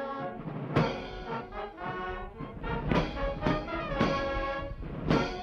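Military brass band playing, with trombones and other brass holding chords, punctuated by cymbal and drum strikes every second or so.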